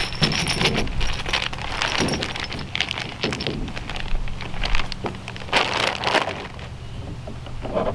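A small clear plastic hardware bag crinkling and rustling in the hands as mounting bolts are taken out of it, in irregular bursts for several seconds.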